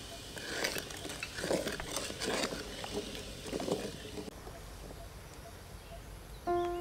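Wooden spoon stirring hot liquid in a metal cooking pot, in uneven strokes for the first few seconds. Music comes in near the end.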